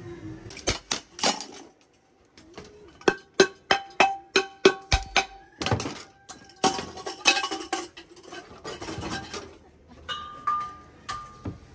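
Steel cookware and gas-stove parts being handled and knocked on a counter: a string of sharp metallic clinks and clanks, some with a short ring, coming fastest a few seconds in.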